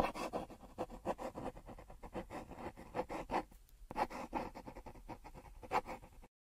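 Pencil scribbling on paper: a quick, irregular run of scratching strokes, as of a logo being sketched, that cuts off abruptly near the end.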